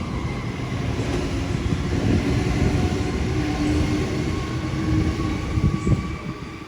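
Sydney Trains electric double-deck passenger train running through the station: a steady rumble of wheels on rails with a steady hum from the train.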